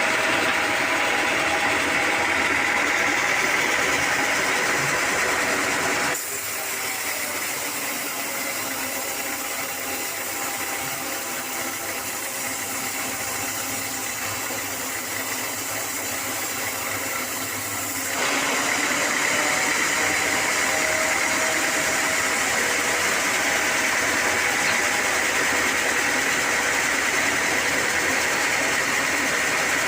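Sawmill machinery running steadily with a constant whine. It drops suddenly to a quieter, thinner sound about six seconds in and returns just as suddenly about eighteen seconds in.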